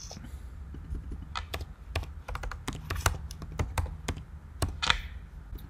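Typing on a computer keyboard: a run of irregular key clicks as a form field name is typed in.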